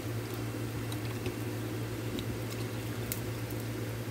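A pot of harees, cracked wheat in milk and laban, bubbling on the heat, with small scattered pops and one sharper pop about three seconds in, over a steady low hum.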